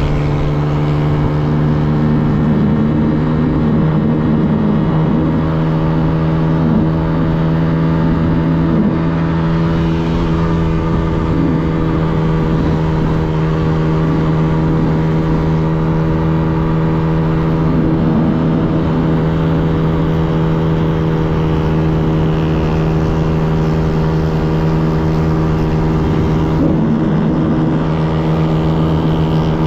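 Yamaha TTR110 pit bike's small single-cylinder four-stroke engine running hard at a steady, unchanging engine speed while riding.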